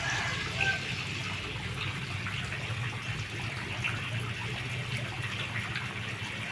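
Water trickling steadily, a constant running splash.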